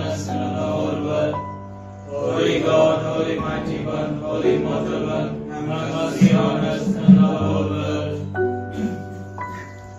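Devotional chant: voices singing over steady held chords.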